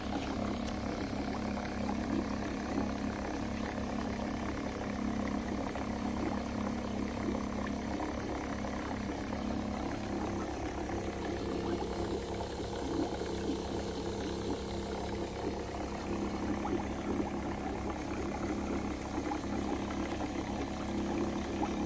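A motor-driven pump running with a steady hum, circulating cleaning solution through a pressure washer heater coil and back into a bucket, with water churning where the return hose discharges.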